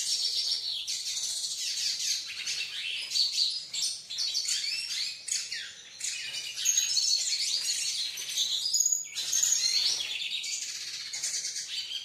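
Caged pintassilgo (a South American siskin) singing a rapid, continuous twittering song of high chirps and trills, with brief breaks about halfway through and again near the end.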